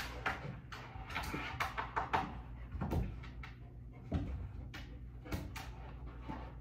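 Room tone: a steady low hum with scattered short knocks and clicks.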